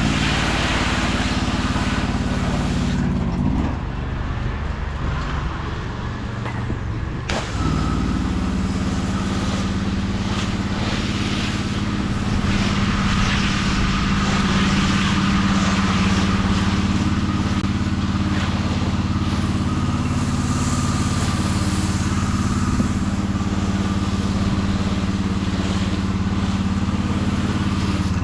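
Engine running steadily under a high, noisy hiss. About three seconds in the hiss drops away, and it cuts back in sharply some four seconds later while the engine keeps running.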